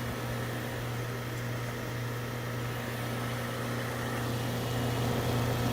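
Goodman central air conditioner's outdoor condensing unit running: a steady low hum from the compressor under the rush of the condenser fan, while it is being topped up with R22 refrigerant.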